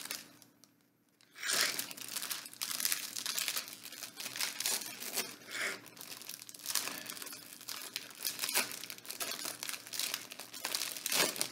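Plastic wrapper of a Gansito snack cake crinkling and tearing as it is worked open by hand: a quiet start, then a dense run of irregular crackles from about a second and a half in.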